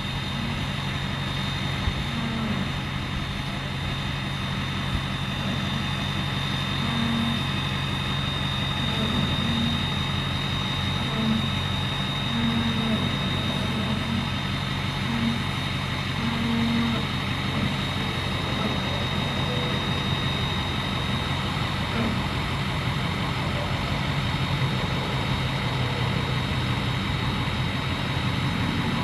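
Rollback tow truck's engine running steadily while the tilted bed unloads a pickup, with a thin constant high whine above it and a few short faint tones in the low mids.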